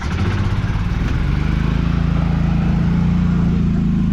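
A vehicle's engine revving up about a second in and then held at a steady high pitch, with a pulsing beat.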